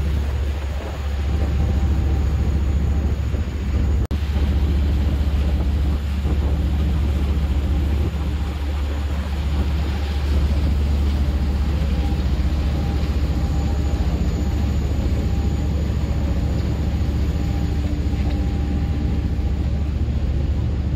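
A fishing boat's engine running steadily under way: a continuous low drone with a steady hum above it.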